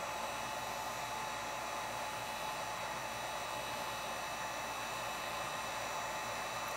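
Electric heat gun running steadily, a continuous rush of hot air with a faint whine, aimed at a sewing machine's mechanism to soften old gummed oil around a stuck lever.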